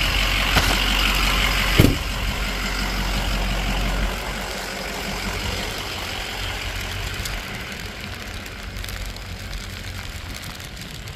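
Ford Power Stroke diesel pickup idling, with a single sharp thump like a door shutting about two seconds in. After about four seconds the engine hum drops away, leaving a quieter hiss of rain.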